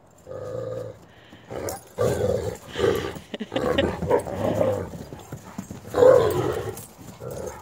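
Wolf dogs growling at each other during rough play-fighting, in a series of bursts, the loudest about six seconds in.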